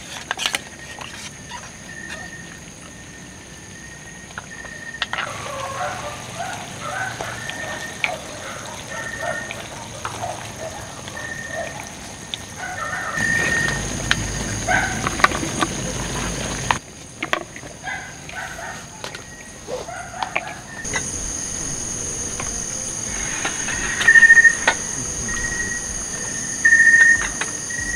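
A rooster crowing in short calls, with two loud ones near the end, over a steady high drone of night insects. Scattered sharp clicks run through it.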